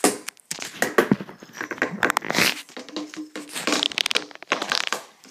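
Rustling and crinkling handling noise, with many irregular clicks and knocks, as objects are moved about.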